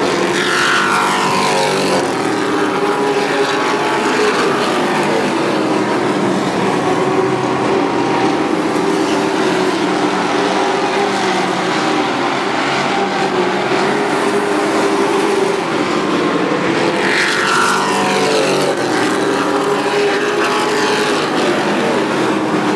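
A pack of short-track stock race trucks running laps on an oval, their engines sounding together steadily. Twice, at the start and again about seventeen seconds in, the engine pitch falls sharply as the pack goes past.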